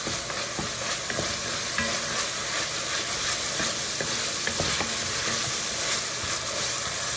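Diced onion and carrots sizzling steadily in an enamelled cast-iron Dutch oven, stirred with a wooden spoon that scrapes and knocks lightly against the pot.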